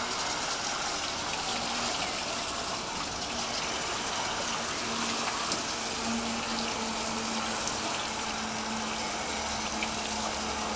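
Steady spray of water rinsing an air-conditioner coil during a coil clean, with a faint low hum coming and going.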